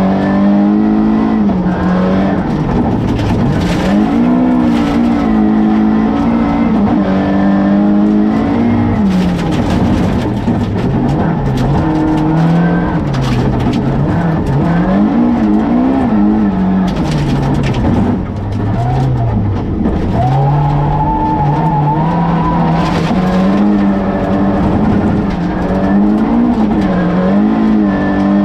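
Rally car engine heard from inside the cabin at full stage pace, its revs rising and dropping again and again through gear changes and corners. Sharp clicks and knocks of gravel striking the car scatter across the run.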